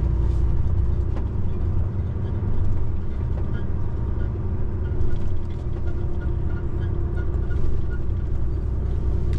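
Volvo truck's diesel engine running steadily while driving, with tyre and road noise, heard from inside the cab.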